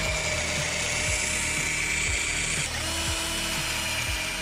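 Black+Decker cordless drill boring holes through a minibike frame's painted metal engine-mount plate, its motor whining steadily. The whine eases briefly a little under three seconds in, then picks up again.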